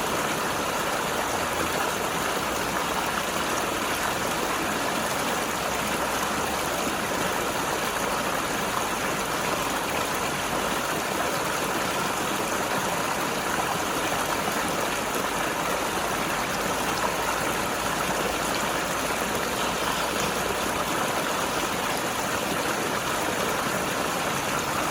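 Mountain river rushing and gurgling over rocks, a steady even flow of water.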